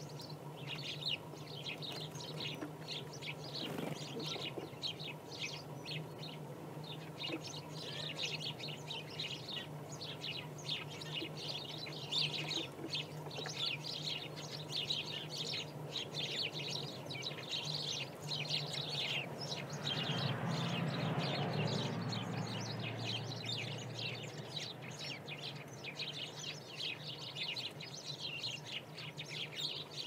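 Many small songbirds chirping and twittering in a dense, rapid chatter throughout, over a steady low hum. About two-thirds of the way through, a low rushing noise swells for a few seconds and fades.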